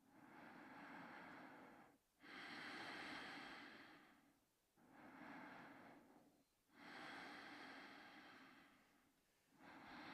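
Quiet, slow snoring breaths of someone asleep: about five soft, breathy swells in ten seconds, in and out in an even rhythm.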